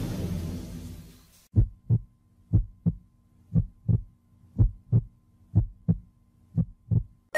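Heartbeat sound effect: six lub-dub double thumps, about one beat a second, coming in after a noisy preceding effect fades out over the first second and a half.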